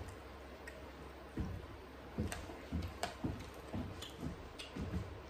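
Metal fork clicking and scraping against a plate and stabbing into fried food, a string of light irregular clicks and soft knocks.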